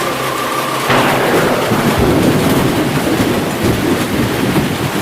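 A thunderclap about a second in, rumbling on over heavy rain, as a held note of music ends.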